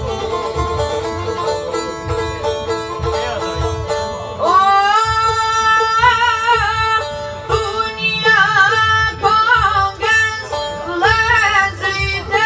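Albanian folk song with plucked çifteli accompaniment over a steady drone note; about four and a half seconds in, a boy's voice comes in singing loud, wavering, ornamented phrases.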